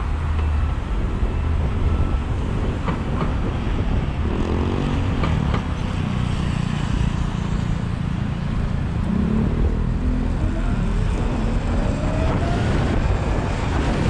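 Riding noise in city traffic on a Sur Ron electric dirt bike: a steady low rumble of wind and road, with a whine that rises in pitch around the middle and again later on.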